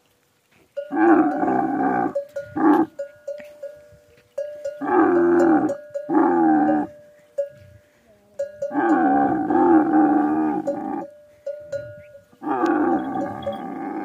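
Dromedary camels groaning while mating: a series of about six loud, drawn-out groans, each one to two seconds long, with short quiet gaps between them.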